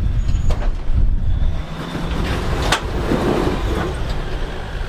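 Off-road 4x4 crawling over rocks: a steady low engine rumble, heaviest at first, with a single sharp click a little past halfway.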